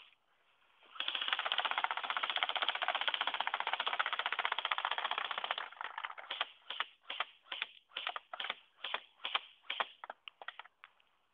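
Airsoft MP5 firing a long full-auto burst of rapid clicks lasting about four and a half seconds, then single shots at about three a second, growing fainter toward the end.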